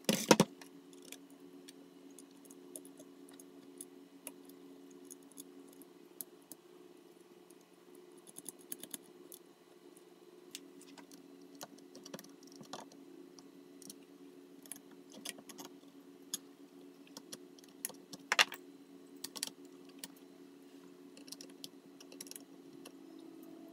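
A heavy knock as the sealed lead-acid battery is pushed home into the backup's metal case at the start, then scattered light metallic clicks and taps of small bolts and terminal connectors being handled, with one sharper click about 18 seconds in. A steady low hum runs underneath.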